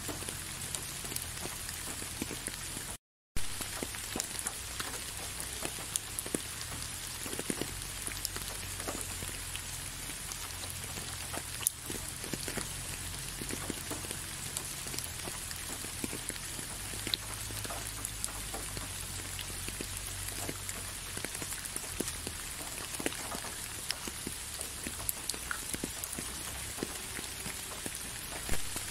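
Steady rain, with many individual drop hits heard separately. The sound cuts out completely for a fraction of a second about three seconds in.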